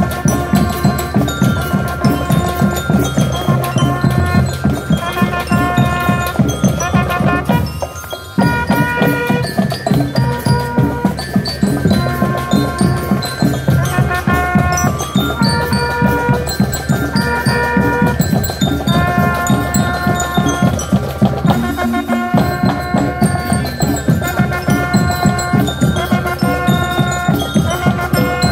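Marching band playing: brass and bell lyres carry the melody over a steady drum beat, with a brief break about eight seconds in before the band comes back in.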